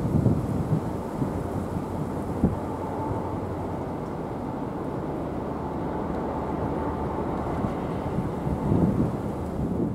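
Diesel locomotives of a freight train running, a steady low rumble, with gusts of wind on the microphone.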